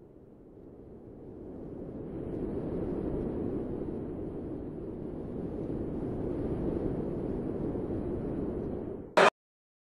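Intro sound effect: a low rumbling noise that swells over the first couple of seconds and holds steady, ended by a short loud hit near the end and then cut to silence.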